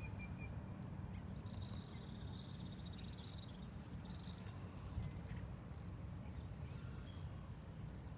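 Steady low rumble of wind on the microphone at the water's edge, with a few faint high chirps near the start and again about two to four seconds in, and a single soft knock about five seconds in.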